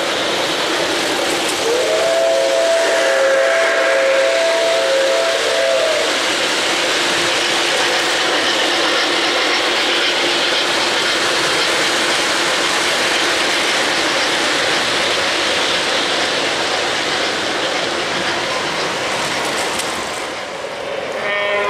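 O-gauge model freight train running on three-rail track with a steady rumble and clatter. Its sound system gives one whistle blast of about four seconds, a chord that slides up at the start, near the beginning.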